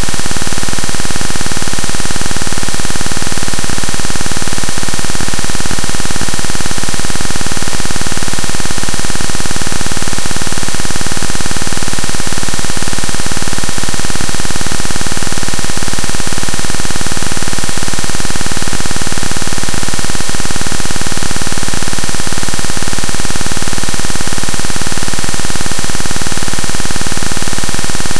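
Loud, unchanging static-like noise filling every pitch, with a few steady tones running through it and no rhythm or melody.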